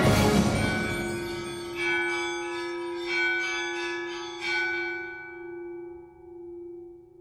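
Church bell struck four times, about a second and a half apart, each stroke ringing on and slowly fading, with a low hum note lingering underneath.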